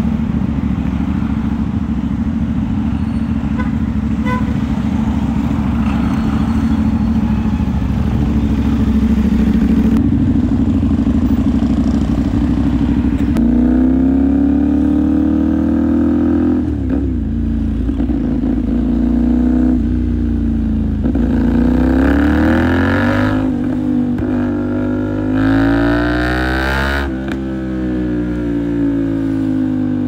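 CFMOTO 450SR parallel-twin engine on the move: steady cruising with road and wind noise at first, then from about halfway it pulls through several gears, its pitch rising and dropping back at each shift, before easing off with a falling pitch near the end.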